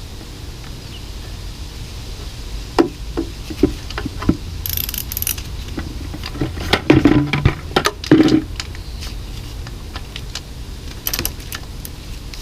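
Irregular metallic clicks and clinks of a socket wrench tightening the oil drain bolt back into a dirt bike engine and of the tools being handled, heaviest about three seconds in and again around seven to eight seconds. A steady low rumble runs underneath.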